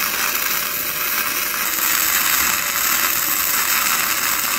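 Electric welding arc from an HBM200 welder burning on a steel mower frame: a steady, loud crackling hiss.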